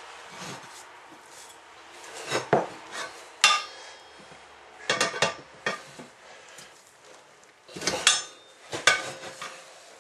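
Pry bar knocking and scraping against a steel garden-tractor wheel rim while a new tire's bead is levered on by hand: a series of sharp, irregular metal clanks, a few with a brief ring.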